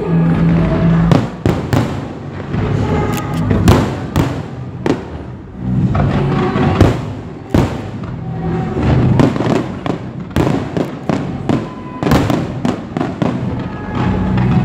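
Fireworks going off: many sharp bangs at irregular intervals, some in quick clusters, with music playing underneath.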